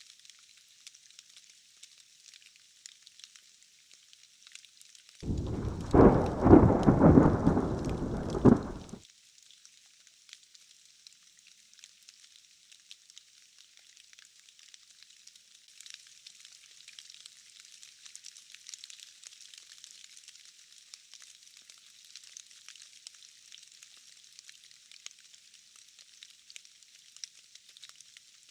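Steady rain hiss, with a roll of thunder about five seconds in that rumbles for roughly four seconds and cuts off suddenly.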